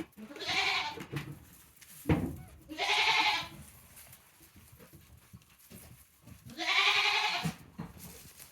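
A goat bleating three times, each call just under a second long and about three seconds apart.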